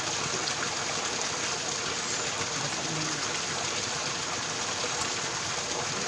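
Spring water gushing steadily from a pipe and splashing onto rocks into a shallow pool.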